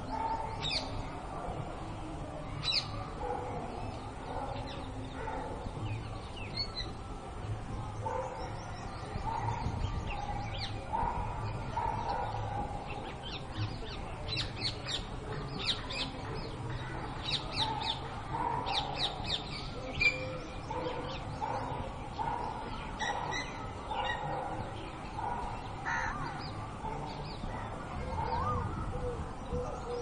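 Outdoor birdsong: many quick, high, falling chirps from small birds, thickest in the middle, over lower, harsher calls that sound crow-like.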